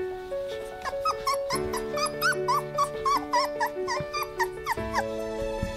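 Three-week-old Weimaraner puppies whimpering and squeaking in a quick run of short, high, rising-and-falling cries, starting about a second in and stopping near the end. Background music with held notes plays throughout.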